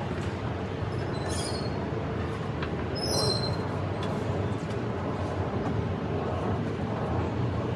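Steady low outdoor rumble with two brief high-pitched squeals, about a second and about three seconds in.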